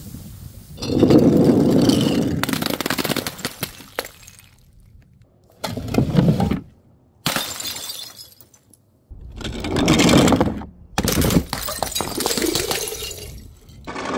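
Glass bottles breaking and shattering, about five separate smashes one after another, each starting sharply and cutting off suddenly.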